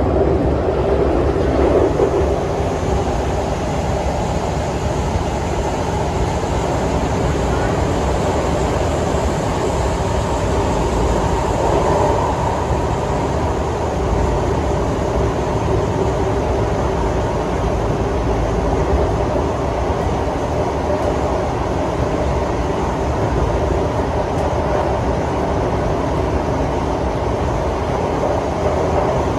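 Singapore MRT train running underground, heard from inside the passenger car: a steady rumble of wheels on rail with a faint motor whine.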